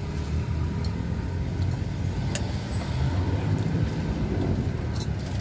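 Steady low rumble of passing road traffic, with a couple of sharp clicks of a metal spoon and fork against a plate.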